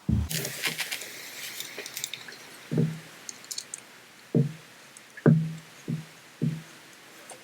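Hands working the bolts of a polymer shell holder on a shotgun receiver: a couple of seconds of small clicks and rustle, then five short knocks with a brief ring as parts and tools are handled.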